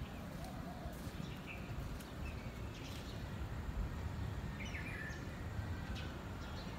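Outdoor ambience: a steady low rumble with a few short bird chirps scattered through it.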